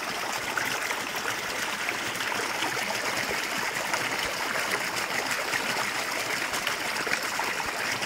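Flowing water running steadily, an even rush without pauses.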